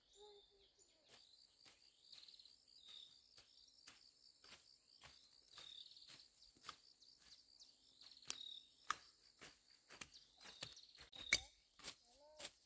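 Faint, steady insect chirring, with a run of sharp clicks or strikes about two a second throughout. The strikes are loudest near the end.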